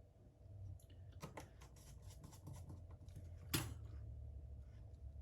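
Faint clicks and scrapes of small phone parts being handled and fitted into the phone's frame, with one sharper click about three and a half seconds in.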